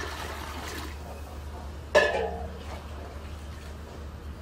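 Hot water pouring from a steel jug into a large aluminium cooking pot of chicken stew, fading within the first second. About two seconds in comes a single sharp metal clank with a short ring, the loudest sound. A low steady hum runs underneath.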